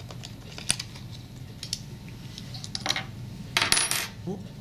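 Small metal clicks as a 4mm Allen wrench and the bolt of a helmet's HANS post are worked, then a short metallic clatter about three and a half seconds in.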